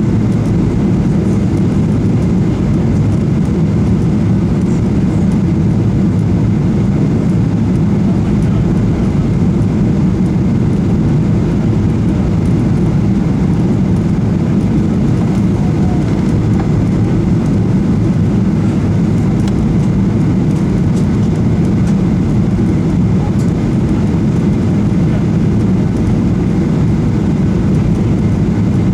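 Steady cabin noise of a Boeing 737-800 on final approach: an even low rumble of engines and airflow with no bumps or changes.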